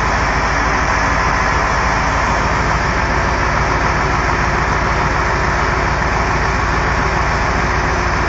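Tow truck's engine running steadily under load, driving the hydraulic loader crane that is lifting a car.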